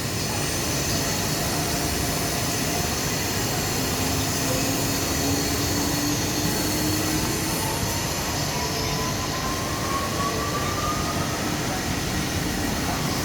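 WFL M70 mill-turn lathe running: a steady mechanical noise with a faint whine that slowly rises in pitch through the middle.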